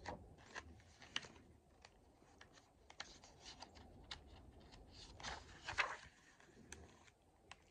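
Pages of an old picture book being turned by hand: faint paper rustling and crinkling with a few light clicks and scrapes, busiest a little after five seconds in.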